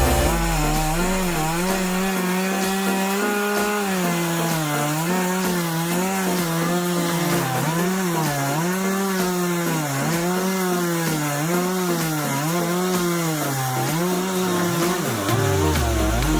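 Small chainsaw running at high speed as it cuts through wood in a homemade chainsaw mill. Its pitch sags and recovers about once a second as the cut loads the saw.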